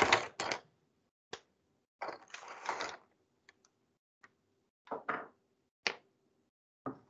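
Pencil scratching on paper in a few short strokes along a steel ruler, between light clicks and knocks as the ruler is shifted and laid down on the pad.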